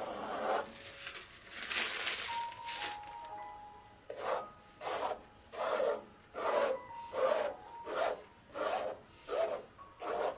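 Palette knife scraping and spreading thick acrylic paint across a canvas in repeated strokes. The strokes are irregular at first, then from about four seconds in settle into a steady run of roughly one every two-thirds of a second. Soft background music plays underneath.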